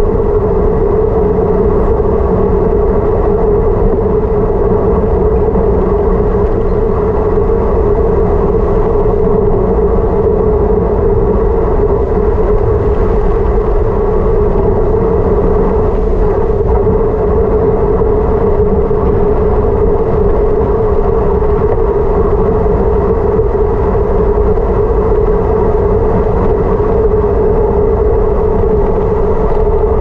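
Steady rush of wind and road noise on the microphone of a vehicle descending a mountain road at speed, with a constant hum.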